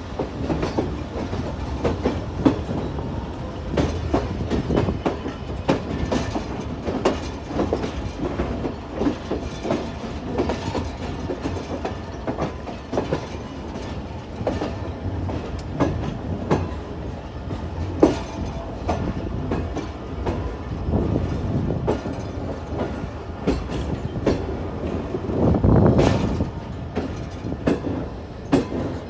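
Tezgam express passenger train rolling slowly through a junction, its wheels clattering over rail joints and points in an irregular clickety-clack over a steady rumble. The rumble swells briefly near the end.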